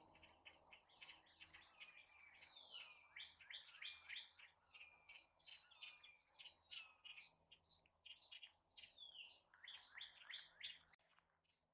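Faint songbirds chirping and singing: a busy run of short whistled notes and quick rising and falling slurs that cuts off suddenly near the end.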